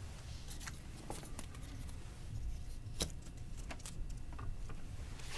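Quiet room hum with a few faint clicks and taps as a pie-chart piece is fitted onto a whiteboard by hand, the sharpest click about three seconds in.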